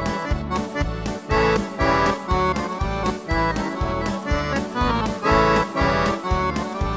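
Accordion playing a Mexican polka tune over a keyboard backing track, with a steady bass beat of about three pulses a second.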